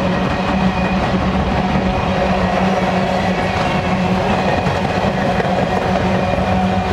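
Empty coal cars of a Canadian Pacific coal train rolling past, a continuous steady rumble and rattle of wheels on rails with a steady hum running through it.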